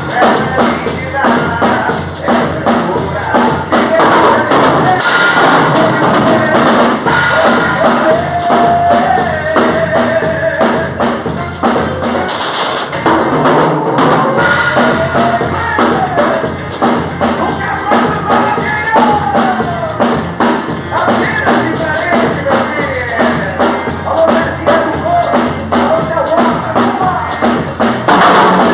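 A song with a drum kit playing a steady, busy beat, and a melody gliding over it.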